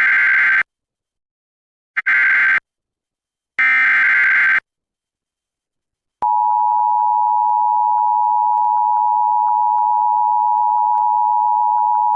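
Emergency Alert System signal: the end of one burst of screeching digital header data, then two more bursts about a second and a half apart. After a short silence, the steady two-tone EAS attention signal starts about six seconds in and holds. It announces an urgent weather message, a severe thunderstorm warning.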